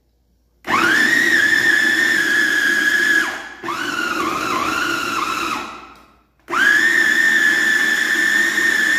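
Small electric food processor (mini chopper) whining as it grinds raw chicken breast pieces with egg and herbs into a paste. It runs in three pulses: the motor spins up to speed about half a second in, cuts out briefly around three seconds and again around six, and in the middle pulse its pitch dips and wavers under the load.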